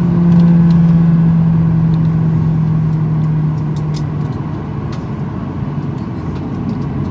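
Boeing 737-800 cabin noise while taxiing: the CFM56 jet engines and airframe make a steady rumble. A low hum over it eases slightly in pitch and fades out about four seconds in.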